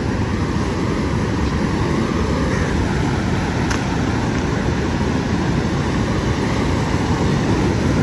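Steady rushing noise of wind and sea surf at the shore, with wind buffeting the microphone.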